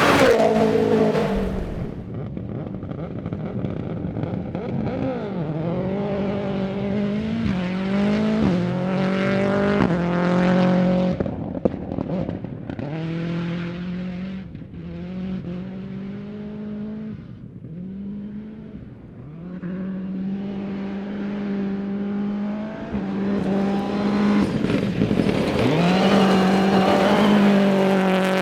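Toyota Yaris AP4 rally car at full throttle on a stage, its engine revving up through the gears with repeated climbs in pitch and drops at each shift. It is loud as it passes at the start and fades into the distance around the middle. Near the end it grows loud again as it approaches.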